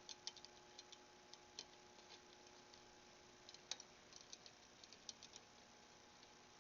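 Faint, irregular light clicks of a screwdriver working the nipples on a motorcycle wheel's spokes, run up by hand in the first loose tightening stage after relacing, over a faint steady hum.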